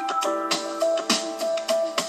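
Instrumental background music: held keyboard-like tones over a steady beat.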